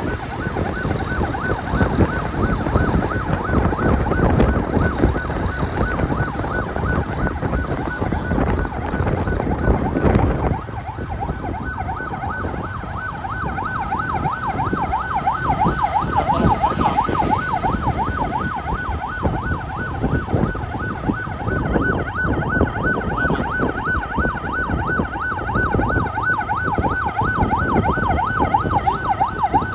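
Police escort siren in a fast yelp, warbling up and down several times a second, over wind and road rumble from the moving vehicle. The siren stands out clearly from about ten seconds in, when the rumble drops.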